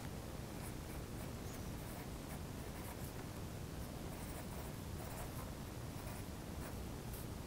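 Pencil scratching on paper in short, irregular strokes as a child writes, faint over a steady low room hum.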